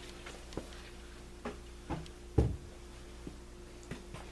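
Handling of fuel cans and the chainsaw during fuelling: a few light clicks and knocks, with one louder, deeper thump about two and a half seconds in, over a faint steady hum.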